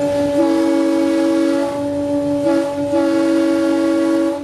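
An EMD GP9 diesel locomotive's air horn, heard loud from inside the cab, sounding a steady multi-note chord. It blows as two long blasts that nearly run together, with some notes dropping out briefly in the middle, and cuts off suddenly near the end.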